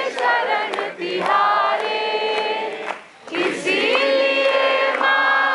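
A group of men and women singing a devotional bhajan together, with a short break between lines about three seconds in.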